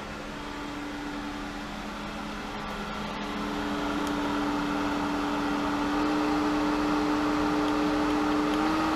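Hayward Super Pump VS variable-speed pool pump running with a steady motor hum and water flow. It gets louder over a few seconds and rises slightly in pitch as it is stepped up from 2500 to 2750 RPM.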